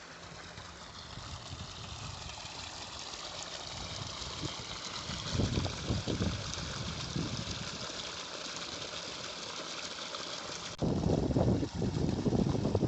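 Water gushing from a solar tubewell's 5-inch delivery pipe and splashing into a concrete tank, a steady rushing hiss. About eleven seconds in it jumps abruptly louder, with a deeper, uneven rumble.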